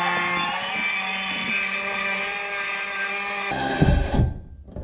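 Makita circular saw cutting through LVL beam stock, the motor and blade giving a steady whine under load. About three and a half seconds in the whine stops abruptly and a few low knocks follow.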